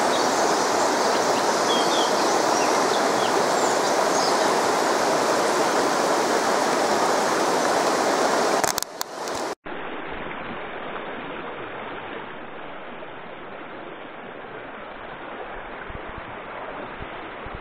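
Fast mountain river rushing over rocks: a loud, steady rush of water. About nine seconds in it cuts off abruptly and gives way to a quieter, duller wash of water.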